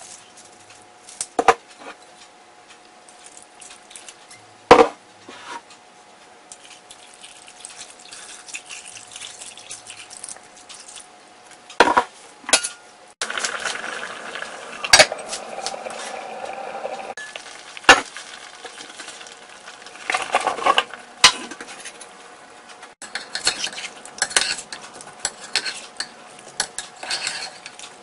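Cooking in a ceramic casserole pot: a utensil knocks sharply on the pot several times, broth bubbles in the pot with a steady hiss through the middle, and a metal slotted spoon clinks and scrapes as it stirs the stew near the end.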